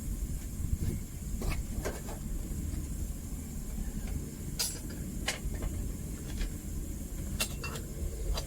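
Homemade propane furnace burner running with a steady low rumble, its gas turned part way down, with a few short sharp knocks over it.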